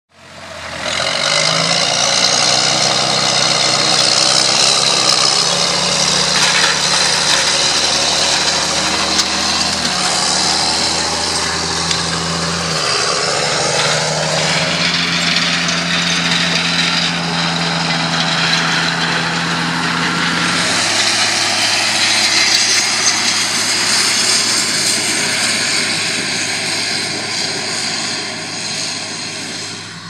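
John Deere 7710 tractor's six-cylinder turbodiesel running steadily under load as it works a seedbed with a front cultivator and a Lemken Kompaktor. It fades in during the first second, and its pitch shifts a few times.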